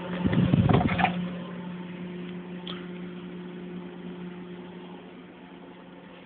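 Microwave oven running with a steady electrical hum and fan noise, with a louder rough, crackly burst in about the first second.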